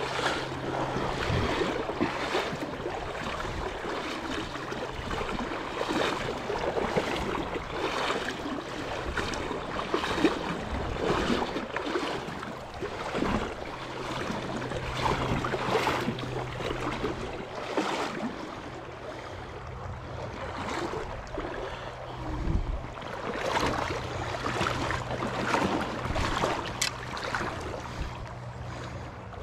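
Shallow river water running over a rocky bed: a steady rushing noise that rises and falls.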